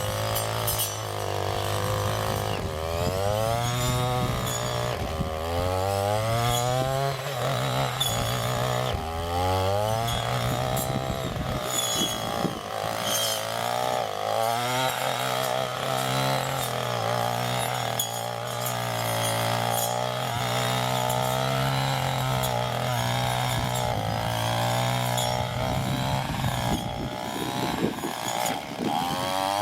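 Small petrol engine running with its speed rising and falling in repeated revs, like a chainsaw or similar engine-driven tool.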